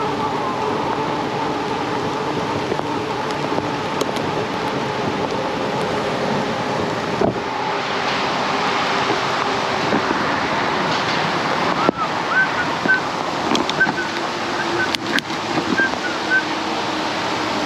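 Wind rushing over the microphone of a moving Aventon Adventure e-bike, with tyre noise and a faint steady whine that fits its rear hub motor. The rush grows louder about halfway through, and from about twelve seconds in a string of short high chirps comes and goes.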